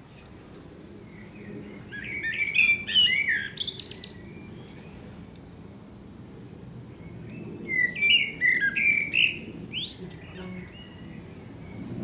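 Male Eurasian blackbird singing two song phrases, one about two seconds in and one about seven and a half seconds in. Each phrase is a fluty warble that ends in a high, squeaky twitter.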